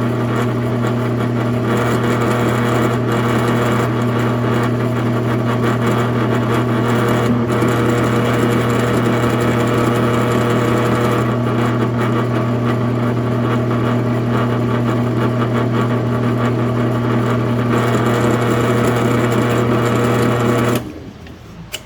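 Drill press motor running steadily with a strong even hum while its bit drills out a broken-off bolt in a Husqvarna 395 XP chainsaw. The machine switches off abruptly near the end.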